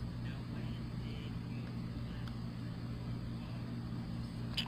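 A steady low mechanical hum, like a motor running, holding the same pitch throughout.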